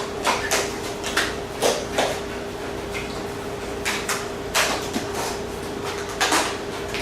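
Cardboard display panels being handled, folded and pressed together: a string of short scraping, rustling strokes, about ten of them, over a steady hum.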